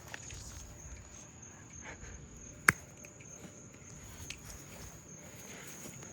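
A faint, steady high-pitched whine with soft scuffing, and one sharp click about two and a half seconds in.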